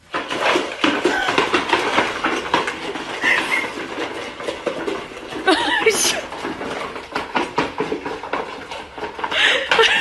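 Puppies eating dry kibble from plastic bowls on a tile floor: a dense clatter of crunching, clicking claws and bowls knocking. A couple of short, higher-pitched cries stand out about six seconds in and near the end.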